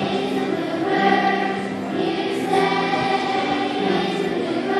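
A choir of third-grade children singing together, holding notes of about a second each.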